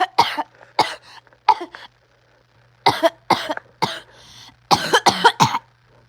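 A person coughing hard and repeatedly, about ten short coughs in bunches, with a pause of about a second around two seconds in and a quick run of four coughs near the end.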